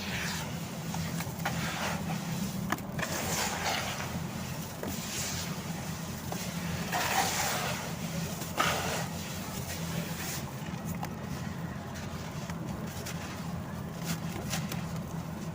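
Dried sand-cement chunks being crumbled, giving irregular bursts of crunching and crackling with a couple of sharp snaps, over a steady low hum.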